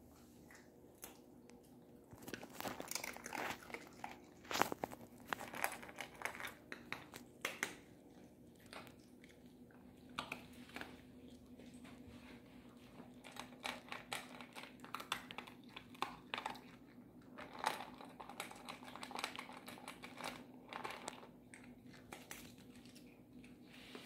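Miniature poodle eating dry kibble from a stainless steel bowl: irregular crunching and chewing, in clusters of sharp clicks that start about two seconds in, with short lulls between.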